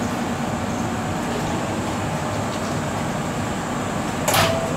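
Steady running noise of a Chichibu Railway 6000 series electric train standing at a station platform with its onboard equipment running. A brief sharp noise about four seconds in, followed by a short high tone.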